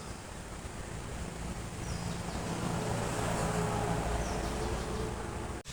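Steady rushing wind, partly blowing on the microphone. It cuts off abruptly near the end.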